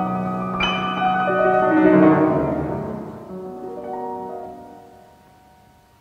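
Solo grand piano: a chord struck about half a second in, then a falling run of notes, after which the held notes die away and the sound is faint by the end.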